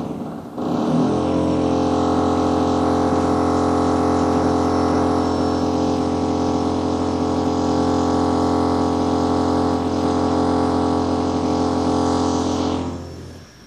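Power drilling in the house: a drill motor starts up in the first second, runs at a steady pitch for about twelve seconds, then winds down near the end.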